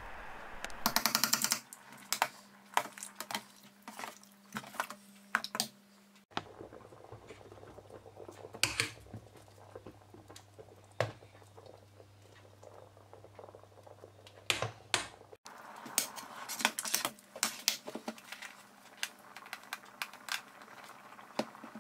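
Thick ajvar sauce simmering in a stainless steel pot: faint, irregular pops of bubbles bursting through the thick purée, with the odd click of the metal ladle against the pot.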